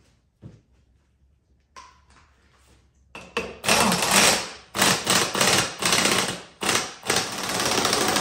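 Pneumatic impact wrench hammering in short bursts, then running without a break from about seven seconds in, driving down the forcing screw of a BeadBuster XB-450 bead breaker to push an ATV tire's bead off the rim. A few light clicks from handling the tool come before it starts, about three seconds in.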